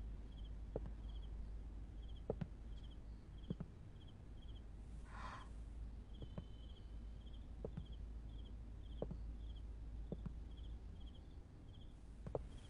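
Faint crickets chirping in short trills, about two a second, with a few soft scattered taps and a brief rustle about five seconds in.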